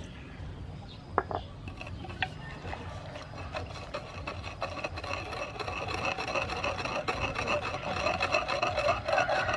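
Wooden pestle grinding and stirring wet chili, garlic, sugar and fish sauce paste in a wooden mortar: fast, rough rubbing that grows louder through the second half, after a couple of knocks of the pestle near the start.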